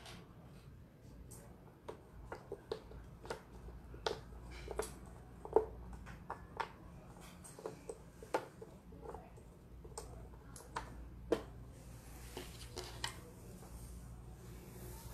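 Plastic Othello discs clicking as a hand flips them over one after another on the board: an irregular run of some twenty sharp little clicks that stops about eleven seconds in, followed by a soft rustle.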